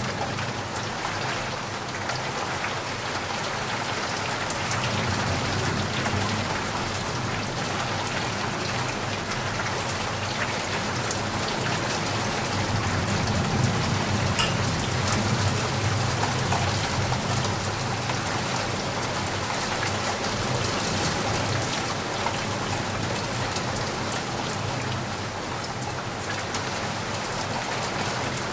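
Steady rain falling with a dense patter of drops, and a low rumble of distant thunder swelling and fading about halfway through.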